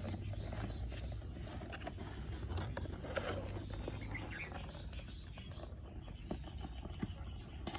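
Cardboard shoebox being handled and set down into loose dirt: light scrapes and small taps scattered through, over a low steady rumble.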